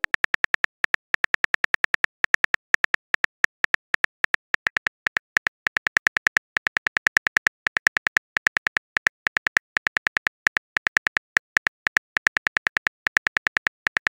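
Smartphone on-screen keyboard typing clicks: a fast, even run of short taps, about six a second, with brief pauses between bursts.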